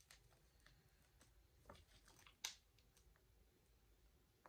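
Near silence: room tone with a few faint clicks and taps as hands handle a glass mug, the clearest about two and a half seconds in.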